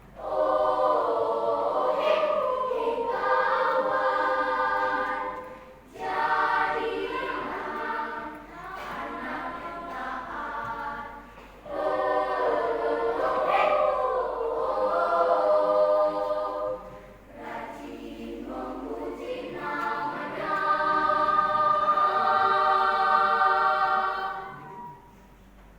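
Children's choir singing a cappella in several-part harmony, in phrases a few seconds long with short pauses between them.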